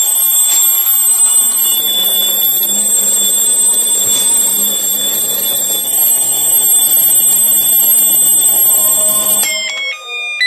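Battery-powered plastic table alarm clock sounding its electronic alarm, a steady high-pitched tone from its small speaker. Near the end the tone cuts off and gives way to a quick tune of stepping electronic notes.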